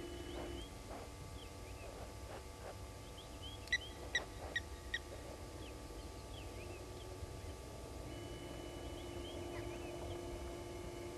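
Bush ambience with birds chirping, and four louder, sharp bird calls in quick succession about four seconds in. A steady hum, the remote camera's pan motor, is heard at the very start and again from about eight seconds in as the view swings.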